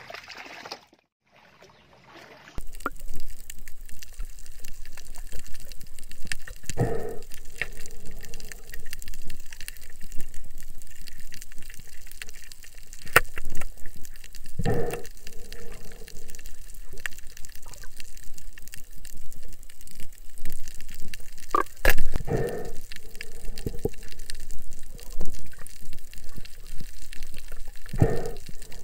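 Underwater water noise picked up by a submerged camera: a steady wash, with a gushing surge about every seven seconds. It begins after a couple of seconds of near silence.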